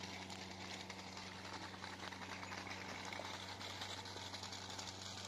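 Seaplane's propeller engine droning steadily far overhead, a low even hum under a steady hiss.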